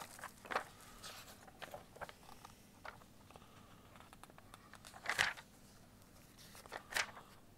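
Paper pages of a textbook being leafed through: a few soft rustles and swishes, the loudest about five seconds in and another near seven.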